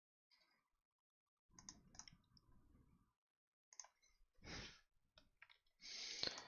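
Faint clicking from a computer mouse and keyboard, with two short louder rustles, the second near the end.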